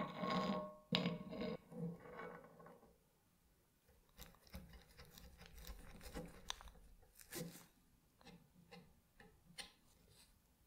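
Knocks with a brief metallic ring as the kingwood cleaver handle with its brass ferrule is set onto the glued blade, in the first two seconds or so. Then light scattered clicks and scrapes from handling the glued handle.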